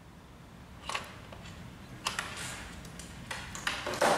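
Handling noise from a laser printer's power supply board being lifted out of the chassis: short plastic and metal clicks and rustles, a few scattered at first, then a louder cluster near the end.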